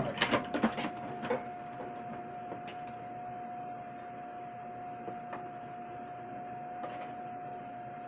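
Light clicks and knocks of a DVI cable connector being pushed into a computer's video card and handled, clustered in the first second and a half, then a few scattered clicks, over a steady high-pitched tone.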